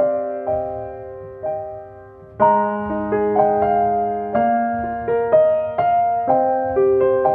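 Background music: solo piano playing slow notes that ring and fade, with a fuller chord struck about two and a half seconds in.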